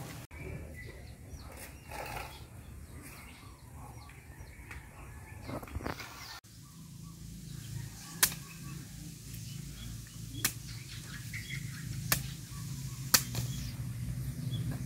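Sharp knocks, four of them in the second half about a second or two apart and louder than anything else, with softer knocking and rustling earlier, over a low steady hum.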